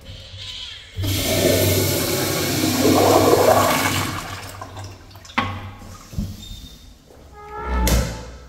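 Commercial flushometer-valve toilet flushing: a sudden rush of water starts about a second in, stays loud for about three seconds, then fades away. A sharp knock comes about five seconds in, and a heavier thump near the end.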